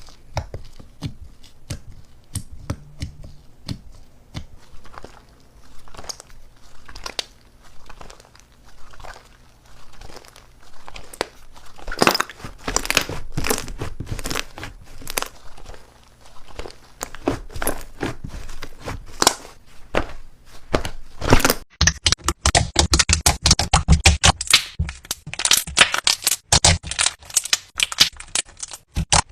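Slime being squeezed, stretched and poked by hand: a run of small sticky clicks and crackling pops. About two-thirds of the way through they turn denser and louder.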